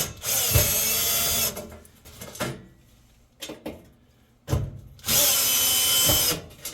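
Cordless power driver running twice, each run lasting about a second, a few seconds apart: the two screws of the oven's burner tray being backed out, with small knocks of handling between.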